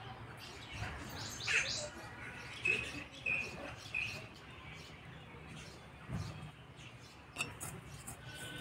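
Small birds chirping: a few quick falling chirps, then three short high notes about a second apart. A soft low thump comes about six seconds in.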